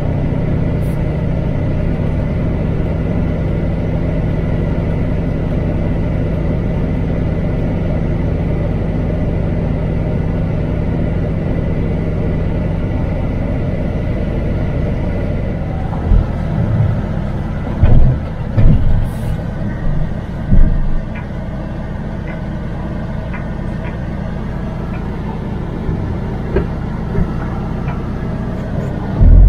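MAN TGX truck's diesel engine running under way, with steady road noise. The engine note changes about twelve seconds in. Between about sixteen and twenty-one seconds there are several loud low thumps.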